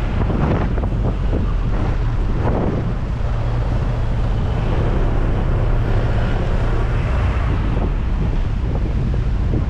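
Heavy wind buffeting the microphone of a GoPro on a moving Honda PCX 150 scooter, over the steady hum of the scooter's engine and road noise.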